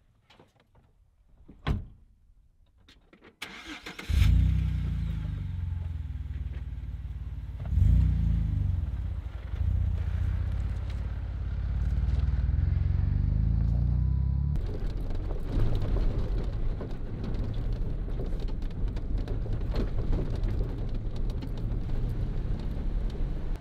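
Jeep Wrangler's 3.8-litre V6 starting about four seconds in with a flare of revs, flaring again a few seconds later, then running steadily. A sharp click comes just before the start. About two-thirds of the way through, the engine sound turns rougher and noisier.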